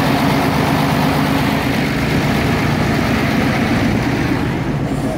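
Inboard engine of a wooden motor boat running steadily at a constant low hum.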